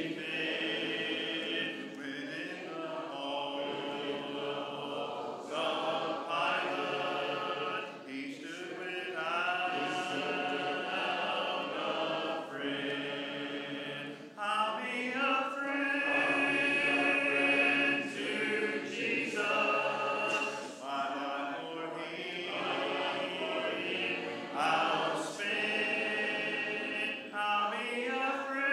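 Church congregation singing a hymn a cappella, many voices and no instruments, with held notes and short breaks between phrases.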